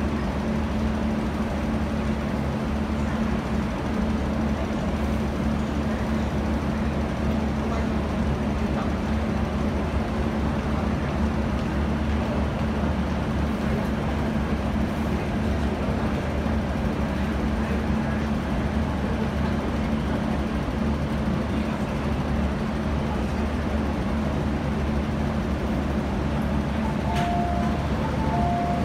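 MTR Kwun Tong line train at the platform behind the screen doors: a steady rumble with a constant low hum. Near the end a short two-tone beeping chime sounds as the doors open.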